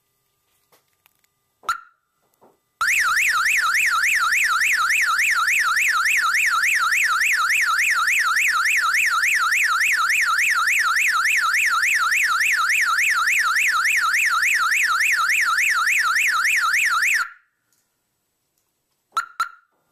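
DEI 514N 12-volt car alarm siren: a short chirp, then a loud siren wail of rapid rising-and-falling sweeps, about three a second, lasting some fourteen seconds with no change of tone before cutting off abruptly. It ends with two quick chirps. The single unchanging tone fits the siren being cut down to one tone from its six-tone cycle.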